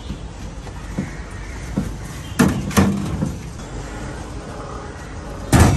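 Knocks and clatter of stainless-steel containers and lids handled on a steel stall counter: two knocks about halfway through and a louder one near the end, over steady street background noise.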